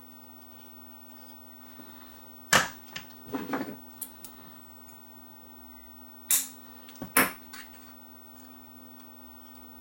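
Sharp clicks and taps of small hand tools working in a radio chassis during a capacitor replacement: a loud click about two and a half seconds in, a short cluster of smaller ones a second later, then two more loud clicks around six and a half and seven seconds in, over a faint steady hum.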